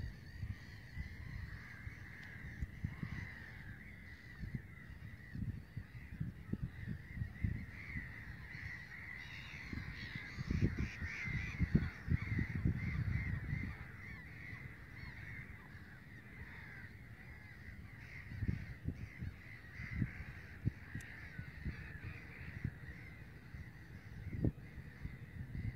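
A colony of black-headed gulls calling without a break, many harsh cries overlapping, loudest about halfway through. Low bumps and rumble run underneath on the microphone.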